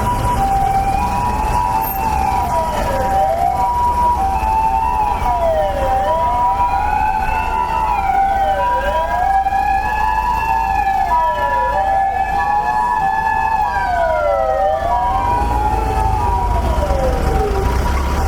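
Two emergency-vehicle sirens sounding together: a two-tone hi-lo siren switching back and forth between two pitches, and a wailing siren rising and falling about every three seconds. Near the end one siren's pitch slides down as it passes. Steady traffic rumble runs beneath.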